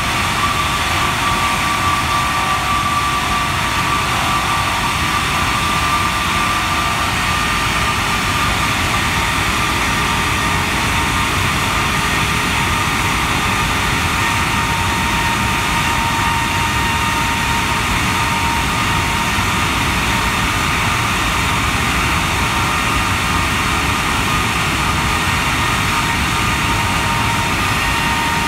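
Rolls-Royce Trent 895 turbofan on a Boeing 777 running steadily during a high-power ground engine run: a loud, even jet rush with a fan whine that slowly falls in pitch.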